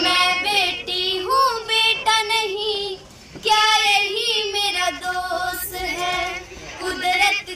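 A high-pitched voice singing a song, with a short break about three seconds in.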